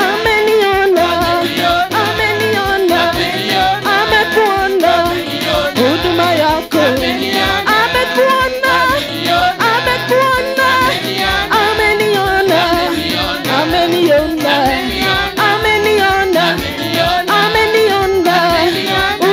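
Live gospel praise-and-worship music: a woman singing lead into a microphone, with other singers and an electronic keyboard, over a steady beat.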